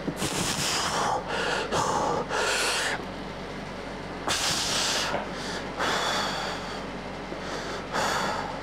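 A man breathing hard and forcefully as he presses a barbell through bench-press reps: loud hissing exhales and gasps coming in spells a few seconds apart, over a steady low hum.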